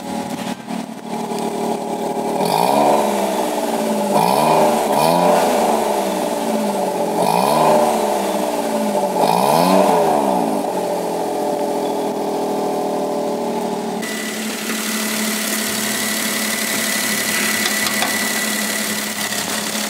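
Kei car engine heard at the exhaust tailpipe, idling and blipped four times, each rev rising and falling back; an angry-sounding exhaust note. After about fourteen seconds it runs steadily at idle with a thin high whine.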